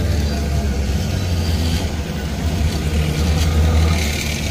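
Bombardier M5000 tram passing slowly at close range, a steady low rumble.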